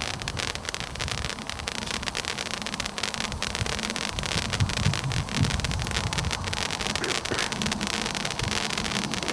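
Super Etna firework fountain burning: a steady hiss of spraying sparks packed with rapid, irregular crackling pops, over an uneven low rumble.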